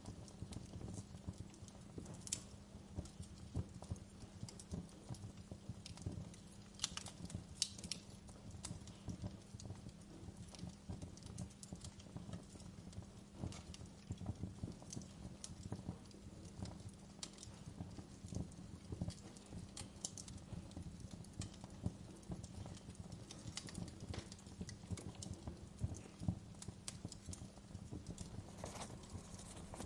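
Fire crackling in a fireplace: a faint, dense low crackle with occasional sharper pops.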